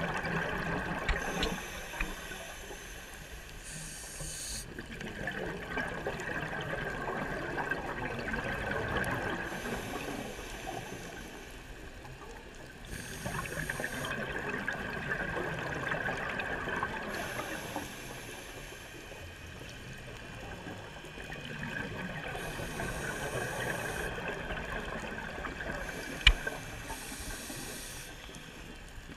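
Scuba diver's regulator breathing heard underwater: a hiss on each inhale and a rush of exhaled bubbles, swelling and fading in slow cycles several seconds apart. One sharp click near the end.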